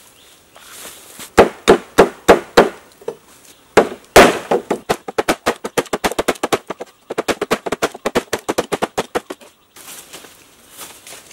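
Blade chopping into a bamboo tube resting on a log. Five hard, separate chops come first, then after a pause a long fast run of lighter chops at about five or six a second, with one short break.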